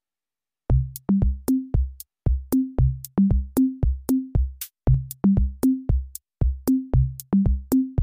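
Electronic background music: a drum machine playing short, low pitched drum hits and sharp clicks in a quick, even rhythm. It starts about three-quarters of a second in.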